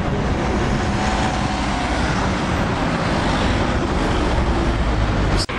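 Steady rumble of road traffic, heaviest in the low end, which breaks off abruptly near the end.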